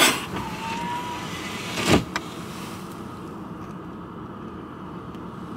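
Steady running noise of a car with its heater on, heard inside the cabin. It is broken by two short, loud bursts about two seconds apart as a man sputters and spits out a mouthful of mouthwash that he took for Gatorade.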